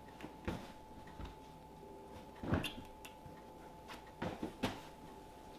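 Throw pillows tossed off a leather sofa, landing in several soft, dull thumps with a rustle of fabric. The loudest lands about halfway through, and two more come close together near the end.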